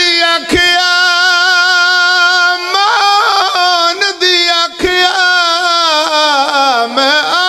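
A man singing solo into a microphone, holding one long note with a wavering vibrato for nearly three seconds, then shorter ornamented phrases that sink in pitch near the end. This is the sung, lamenting style of a zakir's majlis recitation in Punjabi.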